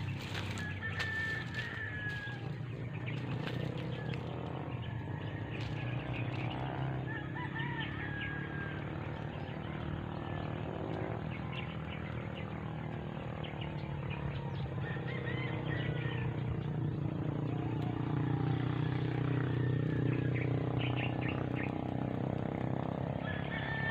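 Birds chirping outdoors, a few short falling chirps spaced several seconds apart, over a steady low hum.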